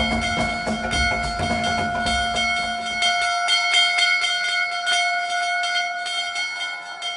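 Ramp music of bell-like ringing tones over a bass beat; the bass and beat drop out about three seconds in, leaving the ringing tones to fade away.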